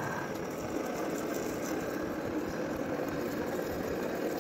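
Heavy-duty metal lathe running steadily while its cutting tool turns a large metal gear blank, with chips curling off the cut.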